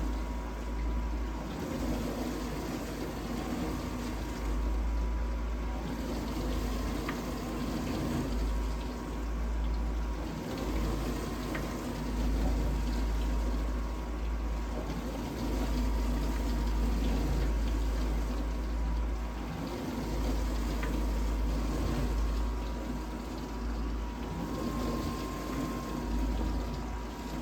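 Vintage dishwasher running its wash cycle: a steady low pump-motor hum that swells and dips every few seconds, under water sloshing and spraying inside the tub. The owner thinks the pump sounds restricted, the water no longer hitting the tub at full force.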